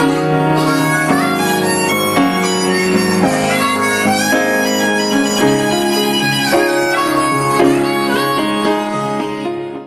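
Music: an instrumental break in a slow song, with a harmonica playing held, sliding notes over the band, fading out near the end.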